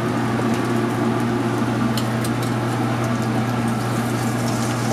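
Steady low mechanical hum of a food truck's kitchen equipment, with a few faint light clicks about two seconds in.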